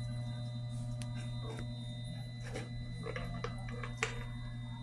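A steady low machinery hum with thin high whining tones over it, and a few light clicks and rustles of electrical wires being handled, the sharpest click about four seconds in.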